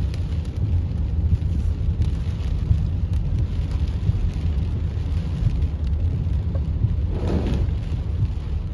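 Heavy rain hitting a moving car's windshield and roof, heard inside the cabin, with scattered ticks of drops over a steady low rumble of the car on the wet road. A brief swell of noise comes about seven seconds in.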